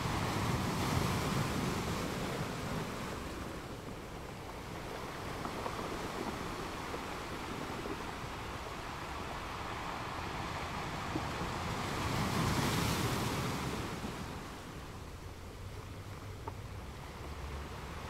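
Ocean waves washing onto a shore: steady surf noise that swells twice, near the start and again about twelve seconds in.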